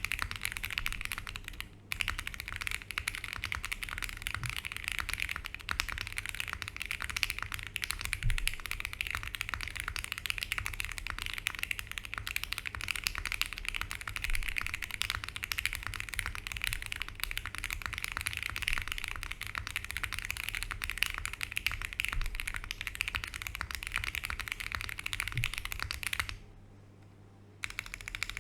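Fast, continuous typing on a foamless Sugar65 R2 mechanical keyboard fitted with lubed Gateron CJ linear switches on an FR4 plate, giving a poppy clack. The typing breaks off briefly about two seconds in, stops for about a second near the end, then starts again.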